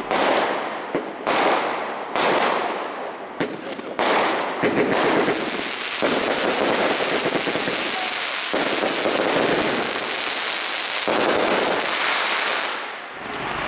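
Fireworks display shells bursting overhead. First come a few sharp bangs about a second apart. From about four seconds in there is a dense, continuous crackling for some eight seconds, which dies away near the end.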